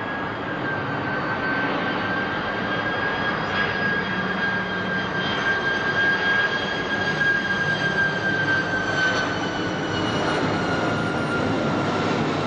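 Airbus A330 twin-jet airliner on approach, passing close: a steady jet roar with a high engine whine that slides slightly lower in pitch in the second half.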